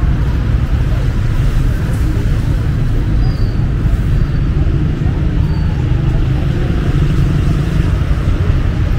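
Steady city road traffic: cars running past in a continuous low rumble, with a few faint, short high chirps about three to six seconds in.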